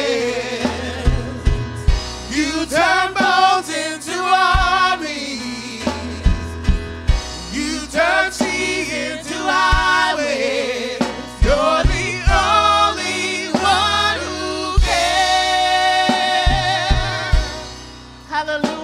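Live gospel worship song: a man and a woman singing over a drum kit and bass, dying away near the end.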